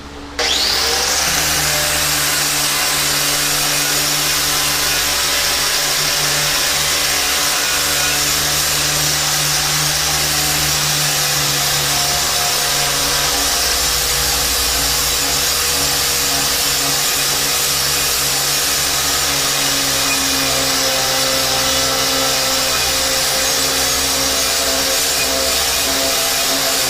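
Angle grinder switched on, spinning up with a brief rising whine, then running steadily as it is worked over a rusted 1/4-inch steel plate, stripping off the rust.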